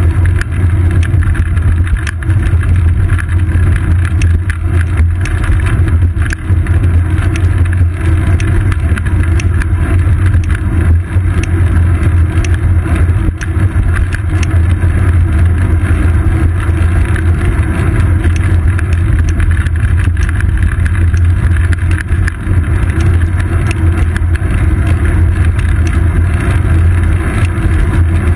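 Steady low rumble of a moving bicycle's ride picked up by a seat-post-mounted GoPro Hero 2 in its housing: road vibration and air rushing past while riding along a paved road, with occasional faint clicks.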